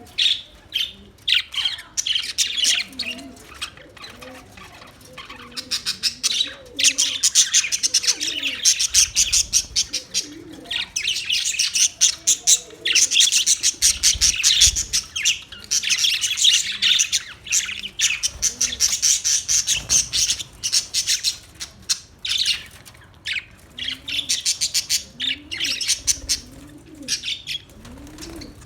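A flock of budgerigars (Australian parakeets) chattering, warbling and chirping continuously, swelling in waves. Some low, curved calls sound underneath the chatter.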